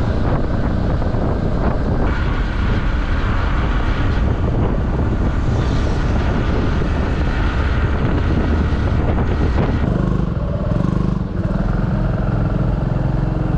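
Small motorcycle running along the road at cruising speed: a steady engine drone mixed with wind and road rush. The engine note shifts about ten seconds in.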